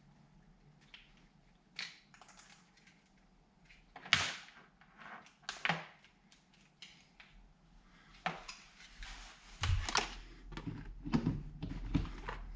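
Hands handling gear and packaging: scattered clicks, small knocks and rustling, busier and louder from about eight seconds in.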